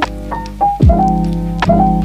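Background instrumental music: sustained piano chords over a steady beat.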